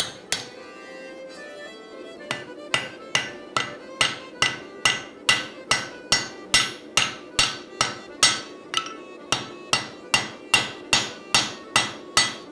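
Cross-peen hand hammer striking a hot steel axe billet on an anvil, forging the lugs around a drift set in the eye. One blow, a pause of about two seconds, then steady, evenly paced blows about two and a half a second, each with a short metallic ring.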